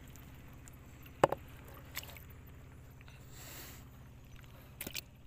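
A speared fish being pushed off a wooden spear into a container of caught fish: a sharp knock about a second in, then a softer knock, a short watery hiss and a few light clicks, over a steady low hum.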